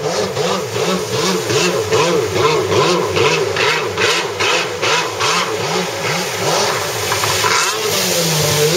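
Freestyle jet ski engine revving up and down in quick repeated surges, about twice a second, as the throttle is worked through spins and tricks.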